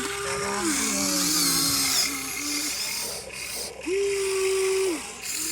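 Small electric motors of a radio-controlled construction model whining in spurts. The whine steps down in pitch about a second in, stops near three seconds, then starts again and cuts out just before the end.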